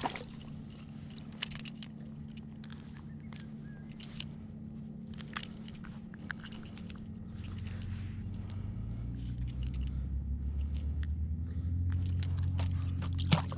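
A motorboat engine droning, growing louder from about halfway through as the boat draws nearer, with scattered small clicks and taps over it.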